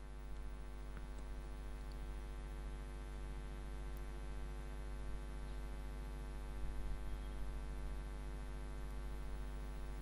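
Steady electrical mains hum, a low buzz with a long ladder of even overtones, holding at one level throughout.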